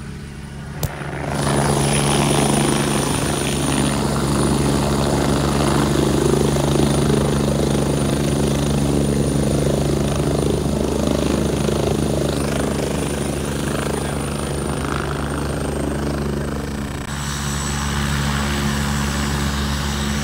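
Helicopter running close by: a steady drone of rotor and engine with a thin high-pitched whine over it. It grows louder about a second in and then holds steady. A short sharp click comes just before the rise, and the whine drops slightly in pitch near the end.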